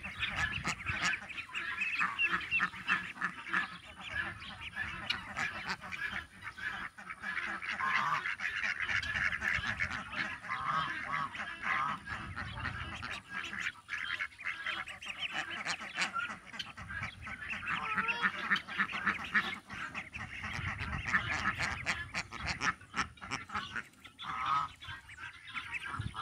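Farmyard poultry calling: geese honking and ducks quacking, many short calls overlapping without a break.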